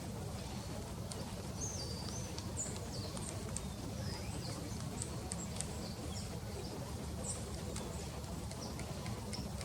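Birds chirping outdoors in short high-pitched calls with scattered sharp ticks, over a steady low rumble.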